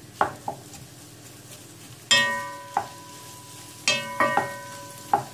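Wooden spoon stirring sliced onions and green chilli frying in oil in a non-stick pot, over a faint sizzle. The spoon knocks against the pot about half a dozen times, the loudest from about two seconds in, and each knock sets the pot ringing with a clear tone that dies away over a second or so.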